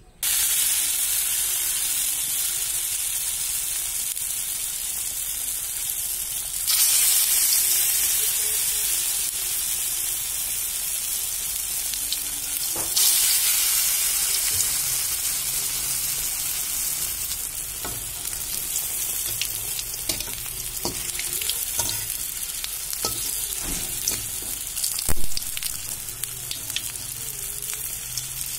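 Lentil fritters (dal bora) deep-frying in hot oil, a dense steady sizzle that jumps louder twice early on. Scattered knocks against the pan come later, with one louder knock near the end.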